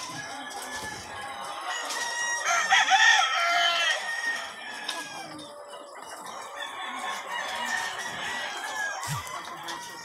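A large flock of caged white laying hens clucking and calling over one another, with a louder burst of calls about three seconds in.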